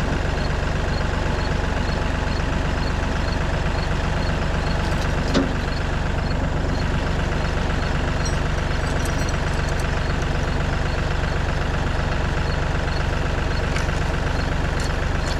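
Tractor's diesel engine idling steadily, with a single knock about five seconds in.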